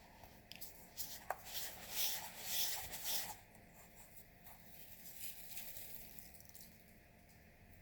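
Faint handling noises as slime and coloured sand are worked into a jar: a few light clicks and a soft rustling hiss, loudest about two to three and a half seconds in.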